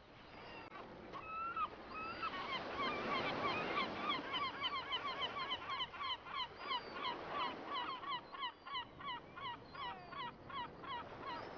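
A dog squeaker toy squeezed again and again, giving short, pitched, honk-like squeaks. A few single squeaks come first, then a fast run of about three to four a second.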